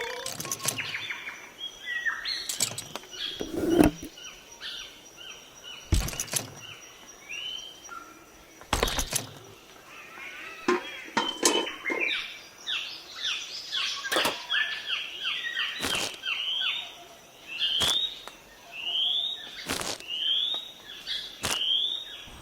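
Birds chirping, with short rising chirps repeating about once a second in the second half, and about ten sharp knocks scattered through, the loudest about four seconds in.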